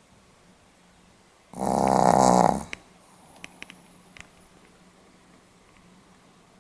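Pomeranian snoring in its sleep: one loud snore about a second long, followed by a few faint clicks.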